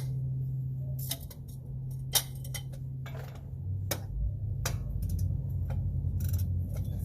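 Scattered sharp metallic clicks and taps from hand tools being worked on a truck's wheel-hub bolts, irregularly spaced, over a steady low hum.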